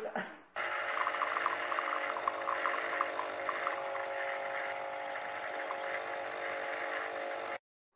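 Pod coffee machine brewing: its pump hums steadily while two thin streams of coffee run into a ceramic mug, with light ticks of liquid early on. The hum cuts off suddenly near the end.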